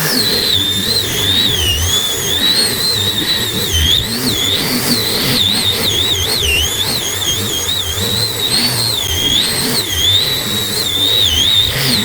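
High-speed power tool running, its high whine dipping and recovering in pitch over and over as it bites into wood under varying load.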